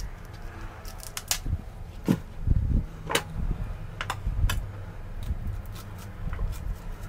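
Kitchen knife slicing kernels off a fresh sweetcorn cob over a stainless steel tray: scraping cuts, with a few sharp clicks and low knocks along the way.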